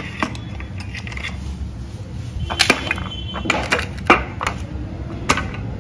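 Garlic cloves being crushed on a steel plate with a hand-held metal object, making several sharp metal-on-metal knocks at uneven intervals.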